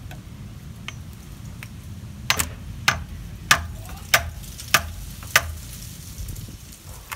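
A screwdriver being tapped into a spin-on oil filter canister to punch a drain hole: six sharp metallic taps about every 0.6 s, starting a little over two seconds in.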